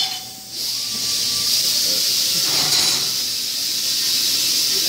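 Plasma cutter hissing steadily, its compressed air rushing through the torch, starting about half a second in.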